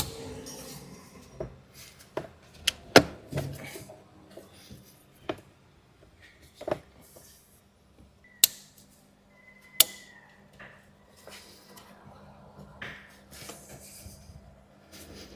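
Plastic coolant pipes, hoses and their clips being handled and pushed into place around an engine's coolant housing: scattered sharp clicks and knocks, loudest about three seconds in, with a brief high squeak near the ten-second mark.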